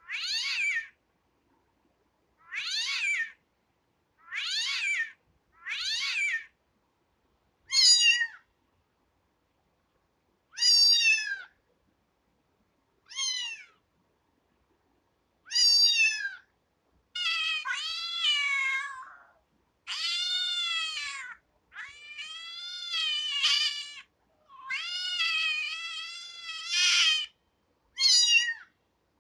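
Kitten meowing over and over in high-pitched calls with dead silence between them. The early meows are short and come about every two seconds. From about halfway through they become longer and drawn out, with the pitch rising and falling.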